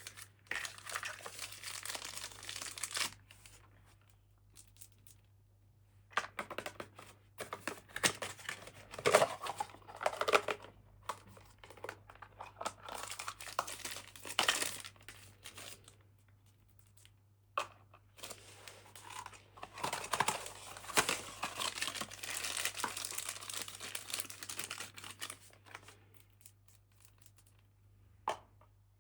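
Toy packaging crinkling and tearing as it is opened by hand, in three bouts of a few seconds each with short pauses between, and a single click near the end.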